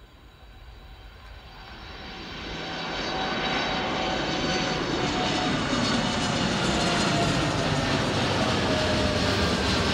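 Boeing 787 jet engines at takeoff power as the airliner climbs out. The sound grows louder over the first three seconds or so, then holds as a loud, steady rumble with a whine that slowly falls in pitch.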